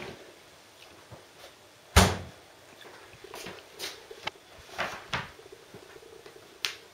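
Refrigerator door shutting with a thud about two seconds in, followed by a few lighter knocks and clinks of a tray of ceramic ramekins being handled.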